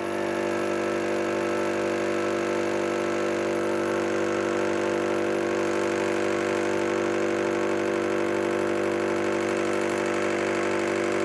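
Metal lathe taking a 30-thousandths-deep interrupted cut with an insert tool across the corners of a square hardened-steel block, running steadily from the moment the cut begins.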